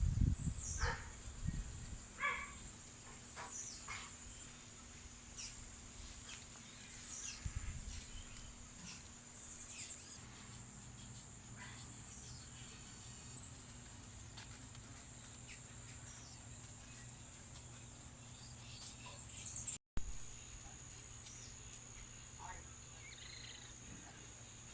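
Countryside ambience: a steady, high-pitched drone of insects, with many short bird chirps that slide down in pitch scattered throughout. There are low rumbles in the first couple of seconds and again around eight seconds in, and the sound drops out for an instant near the end.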